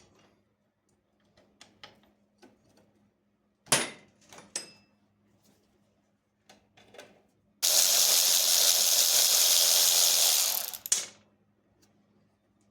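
Scattered clicks and a sharp knock of tools on metal, then a power tool runs loud and steady for about three seconds and stops abruptly, taking apart the motorcycle's rear wheel assembly.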